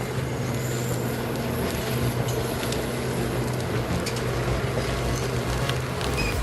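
A heavy land-clearing machine's engine running steadily under work, a constant low drone with a noisy wash over it.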